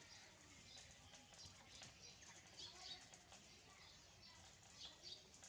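Faint, short high-pitched animal chirps or squeaks, repeating every second or so.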